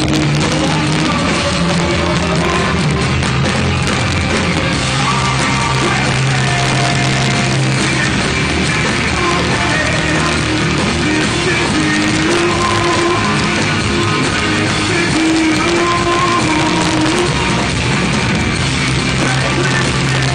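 Live rock band playing loud: guitars and bass holding notes under yelled singing, heard from within the crowd.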